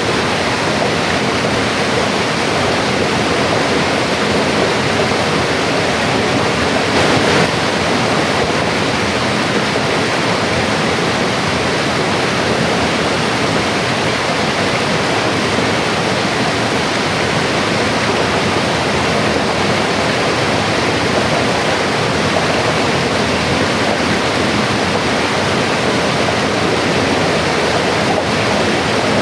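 River water rushing and splashing steadily over rocks, a continuous even roar of flowing water, with a brief swell about seven seconds in.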